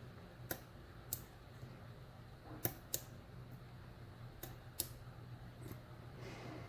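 About seven faint, irregular metallic clicks of a lock pick and tension wrench working the pins inside a euro profile cylinder padlock.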